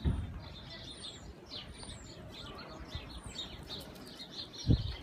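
Small birds chirping and twittering, many short high chirps with a few quick falling notes. There is a low thump right at the start and a louder one just before the end.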